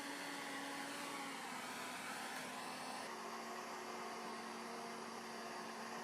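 Tobacco harvester machinery running steadily: a faint hum with a low whine, its pitch shifting a little about three seconds in.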